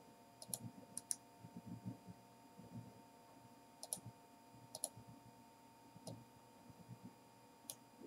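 Computer mouse clicking: about six short, sharp clicks spaced out, two of them a quick pair about a second in, with soft low knocks between them over a faint steady hum.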